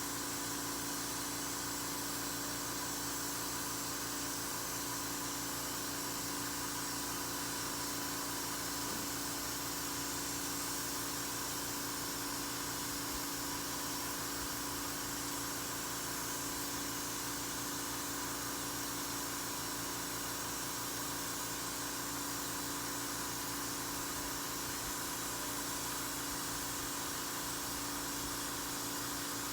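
Steady, unchanging hiss with a low hum, like a small machine or air mover running continuously.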